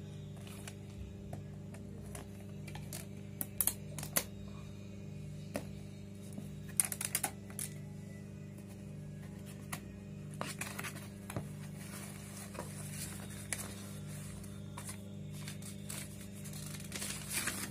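A small cardboard box being handled and opened: scattered clicks and taps from the box and its flaps, then paper rustling as a folded sheet is pulled out and unfolded. A steady low hum runs underneath.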